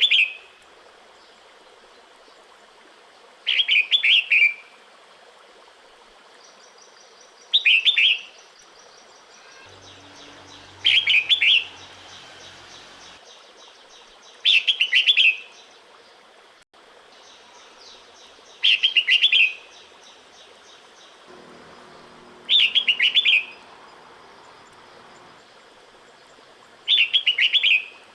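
Female red-whiskered bulbul calling to a male in breeding season: a short phrase of quick chirped notes, under a second long, repeated about every four seconds.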